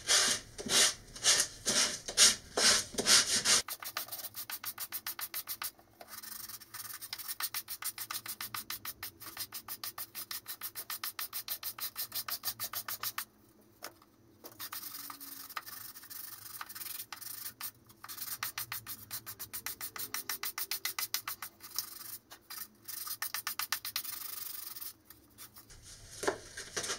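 Medium-grit sandpaper rasping against the edges of fiber rings on a cardboard tube coupler, sanding them down to fit inside a rocket body tube. A few slower strokes come first, then long runs of quick back-and-forth strokes with short pauses.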